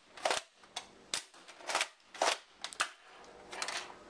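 Modified Nerf Longshot spring blaster, fitted with a custom brass breech and a K26 replacement spring, being cocked and fired in quick succession. It makes a string of sharp clacks and pops about every half second, some in close pairs.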